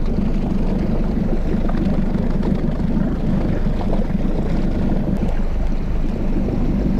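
Steady low rumble of wind on the camera microphone and water moving around the hull of an open fishing boat at sea.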